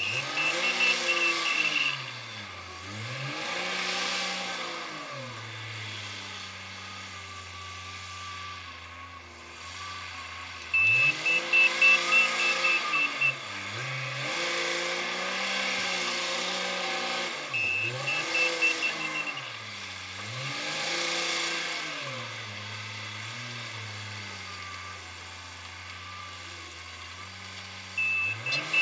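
Komatsu WA350 wheel loader's diesel engine revving up and down over and over as it shuttles and lifts. Its reversing alarm sounds four times in runs of rapid high beeps, a backing-up sound the uploader finds somehow strange.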